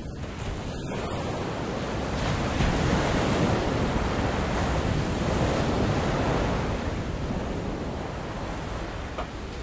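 Rushing water and breaking waves as a sailing yacht drives through choppy sea, with wind buffeting the microphone. It swells louder about two seconds in and eases off again near the end.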